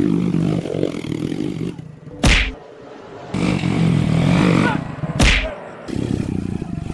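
Small motorcycle engine running, broken twice by a sharp whack, the two about three seconds apart.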